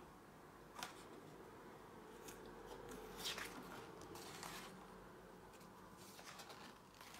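Paper pages of a softcover picture book being turned and handled: a few faint, short papery swishes and rustles, the loudest about three seconds in.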